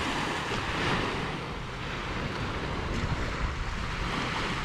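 Waves washing on a sandy beach, with wind on the microphone: an even rushing noise that swells and eases a couple of times.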